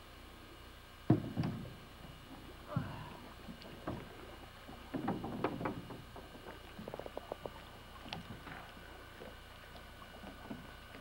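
Hollow knocks and thumps on the hull of a small metal boat as a man steps in and shifts his weight toward the stern, the loudest about a second in. A quick run of clicks comes a little after the middle.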